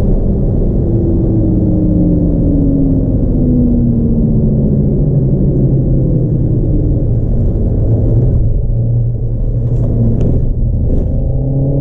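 Renault Megane RS Trophy engine on track, revs falling slowly for several seconds as the car slows, then climbing again near the end as it accelerates.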